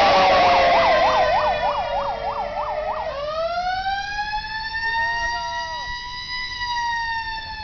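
Fire truck siren sounding a fast yelp, about three warbles a second, for the first three seconds. It then switches to a slow wail that rises, holds, and begins to fall near the end.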